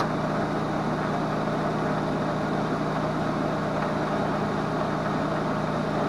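Hobart MIG welder switched on and running with a steady hum and even whirring noise, with a small click right at the start.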